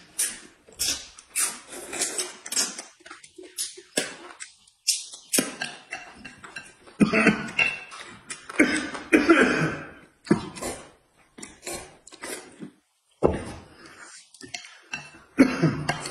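People eating noisily at a table: noodles slurped and food chewed, with chopsticks and dishes clinking, in many short sounds and a louder, busier stretch about halfway through.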